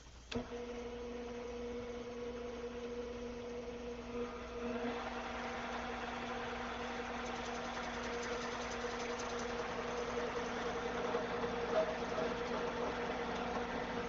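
Metal lathe switched on with a click, its motor then running with a steady hum. About five seconds in, a rougher, noisier sound joins the hum and grows slowly louder.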